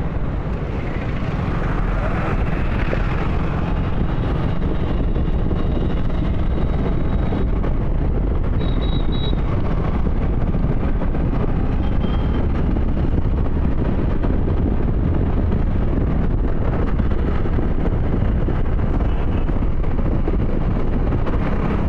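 Motorcycle on the move, heard from the rider's seat: steady engine and road noise under heavy wind rumble on the phone's microphone, with a few faint short high tones in the traffic.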